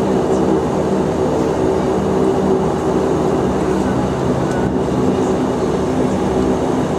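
Bombardier Q400 turboprop engines and propellers running steadily at taxi power, heard inside the passenger cabin: a steady hum with several low tones.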